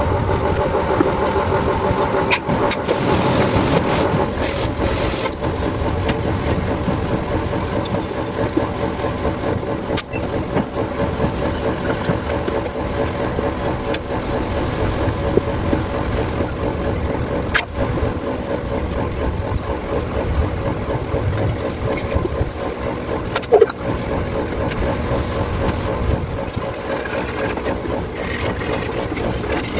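Daihatsu Cuore engine running at a steady idle, with a few sharp clicks along the way.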